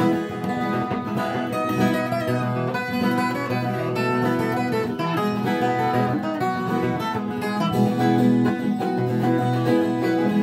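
Viola caipira, the Brazilian ten-string folk guitar, playing a plucked instrumental passage of a caipira-style praise song, with steady low sustained notes underneath.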